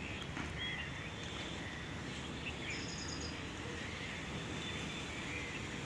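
Steady outdoor background noise with faint bird chirps now and then, and a short high, evenly pulsed trill about three seconds in.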